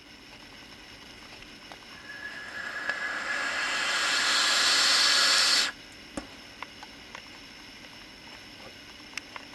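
Long draw on an OBS Engine Nano single-coil rebuildable tank fired at 40 W with a 0.34 ohm coil and the airflow half open. A hiss of air and vapour grows louder for about five seconds, with a faint whistle joining about two seconds in, and then cuts off suddenly when the fire button is released.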